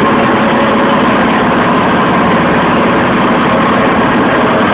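Bulldozer's diesel engine running loud and steady with a dense mechanical rattle, a sound the person filming calls a horrible noise.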